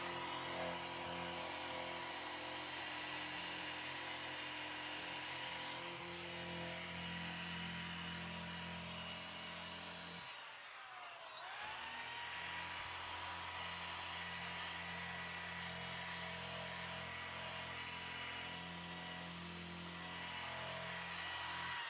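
Small electric power tool motor whining steadily. About halfway through it slows, its pitch falling, then spins back up to speed.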